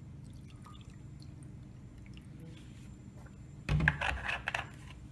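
Vinegar sloshing in a plastic jug as it is handled: a short, uneven burst about a second long, starting a little over three and a half seconds in, with faint handling clicks before it.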